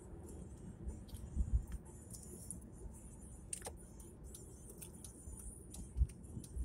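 Car cabin noise while driving: a steady low road and engine rumble with light, irregular ticks and rattles.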